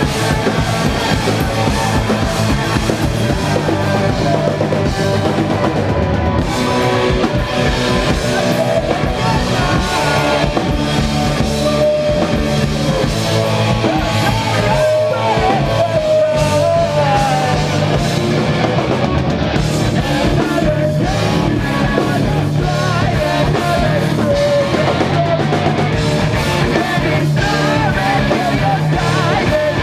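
A live punk/post-hardcore rock band playing loudly: distorted electric guitars over a drum kit, in a steady full-band groove.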